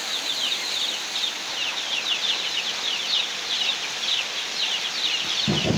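Heavy rain falling steadily. Over it, a bird gives short, high, falling peeps, several a second, all the way through.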